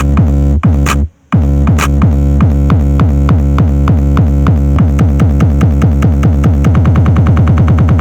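Loud electronic dance music with heavy bass pulses that come faster and faster in a build-up, cutting out briefly about a second in.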